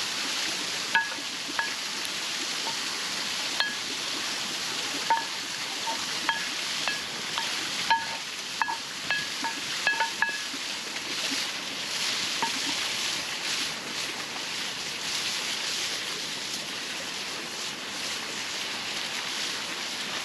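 Steady rushing of a waterfall, with a metal utensil clinking and ringing against a metal cooking pot about a dozen times in the first half, as when stirring food.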